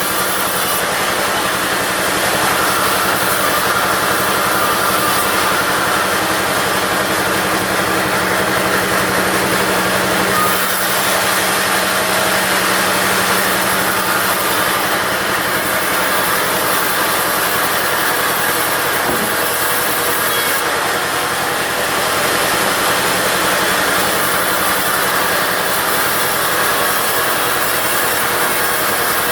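Diesel-driven push-feed bandsaw (gergaji pondong) running steadily while sawing teak, a loud continuous mix of engine and blade noise.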